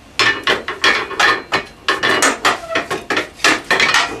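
Motorcycle trailer hitch being worked out of its mounts: a quick, irregular run of loud metal clanks and knocks, about a dozen in four seconds.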